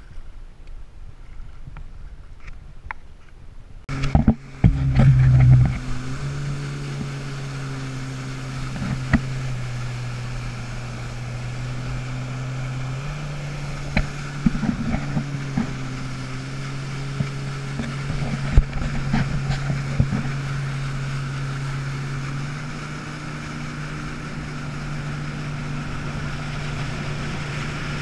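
Yamaha WaveRunner jet ski running at speed: a steady engine drone that shifts pitch slightly a couple of times, with hull slaps, spray and wind buffeting. It is loudest just after it starts, about four seconds in; before that there is only faint water sound from wading in the shallows.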